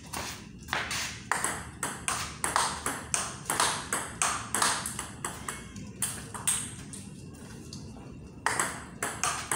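Table tennis ball clicking off the paddles and the table in a rally: a quick run of sharp knocks, about two a second, with a short lull about two-thirds through before the knocking starts again.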